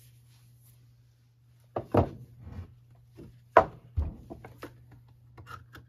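Hollow knocks of a plastic-housed leaf blower being handled and set down on a wooden workbench block: three sharp thunks, followed by a run of lighter plastic clicks and taps.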